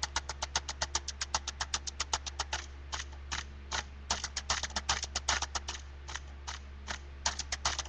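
Rapid clicking of computer keyboard keys, fast and even for the first couple of seconds, then in irregular runs, over a steady low hum.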